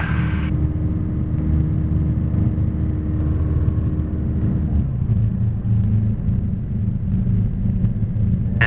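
Steady drone of a Piper Archer's four-cylinder engine and propeller, heard inside the cockpit. About five seconds in, the engine note changes as its higher tones drop away.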